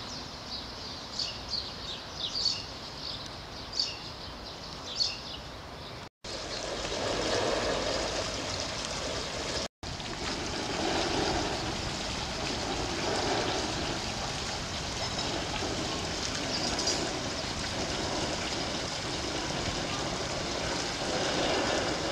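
Small fountain jets splashing into a pool, a steady rush of falling water. In the first few seconds, before it, there is only a quieter background with a few faint high chirps.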